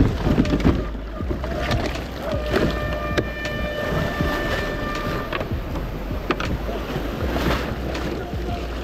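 Wind buffeting the microphone on a kayak at sea, with water splashing and sloshing and a few knocks against the hull. A steady high tone with several pitches sounds for about three seconds in the middle.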